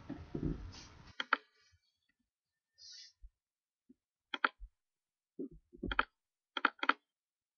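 A steady noise cuts off about a second in, followed by a handful of sharp clicks and soft low knocks, some in quick pairs.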